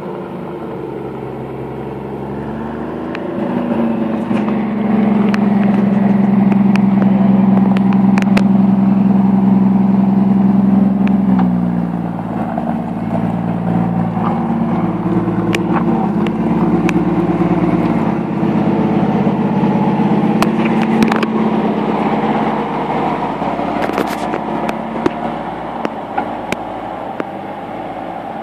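Volvo TL11 4x4 truck's engine running as it is driven. It climbs in pitch about three seconds in, holds there for several seconds, then drops back about twelve seconds in and runs unevenly at a lower pitch.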